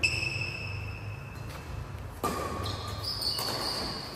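Sports shoes squeaking on a badminton court floor in short high-pitched squeals, with a sharp knock about two seconds in, over a steady low hum of the hall.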